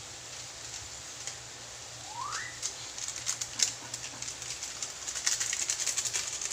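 Chicken pieces sizzling in a wok as the last of their liquid cooks off, the crackling and spattering growing denser and louder from about three seconds in. A single short rising chirp sounds about two seconds in.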